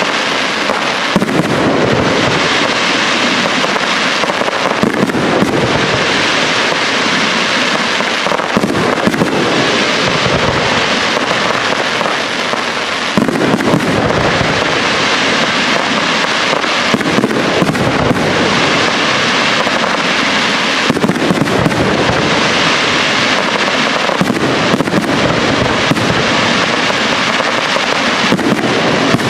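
Aerial fireworks display: a continuous, loud barrage of shell bursts and dense crackling, with heavier booms surging every several seconds.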